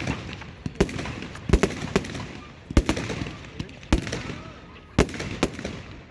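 Aerial fireworks exploding in a string of sharp bangs, about one a second, each followed by a short echoing tail, over a steady background of crowd noise.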